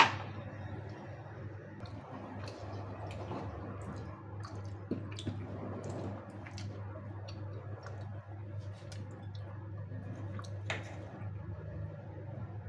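Soft handling noises and scattered small clicks of food being set down and pressed by hand, over a steady low hum; a sharp click at the very start.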